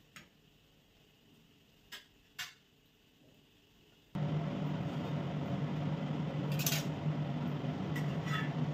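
A metal spatula clinks a few times against an iron tawa. About four seconds in, a loud, steady, motor-like hum starts abruptly, and more metal clinks come over it.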